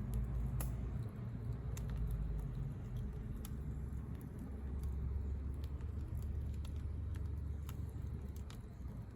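Firewood burning in a fire pit, crackling with irregular sharp pops over a low steady rumble.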